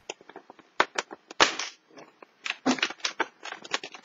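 Cardboard door of a chocolate advent calendar being picked and torn open with the fingers: a run of sharp clicks and crackles, with a longer tearing rasp about one and a half seconds in and another flurry around three seconds.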